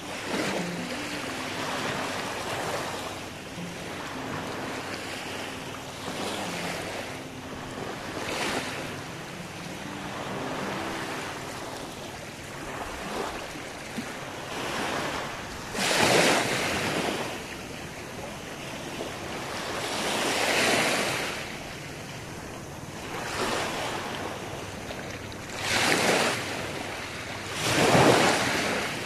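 Small waves breaking and washing up on a sandy shore: a steady wash with separate swells as each wave comes in, the loudest about halfway through and twice near the end.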